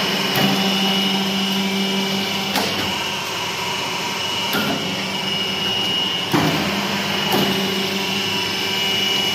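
Hydraulic paper plate (dona pattal) making machine running: a steady motor and blower hum with a thin high whine, broken by about five sharp clacks of the pressing die, a second or two apart.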